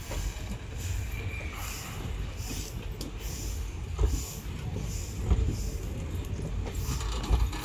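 Indian Railways ICF passenger coaches rolling past, with a steady rumble and an occasional knock as the wheels cross rail joints.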